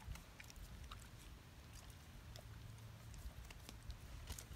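German Shepherd chewing and nosing at baked potato skins on the ground: faint, scattered small crunches and mouth clicks.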